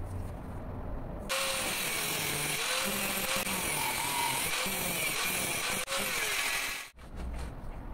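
Angle grinder with a thin cutting disc slicing a slot into a steel block clamped in a vise: a steady, hissing grind that starts about a second in and stops abruptly near the end.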